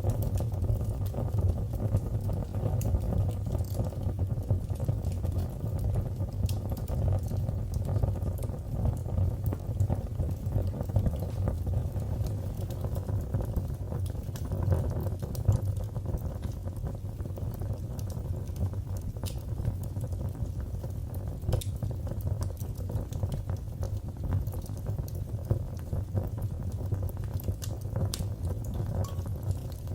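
Wood fire burning in a fireplace: a steady low rumble of the flames with many small crackles and pops scattered throughout.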